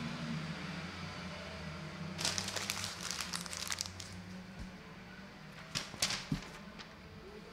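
Distant racing go-karts' small two-stroke engines droning at a steady high pitch, fading after the first second or two. Bursts of crackling clicks come about two seconds in and again around six seconds in.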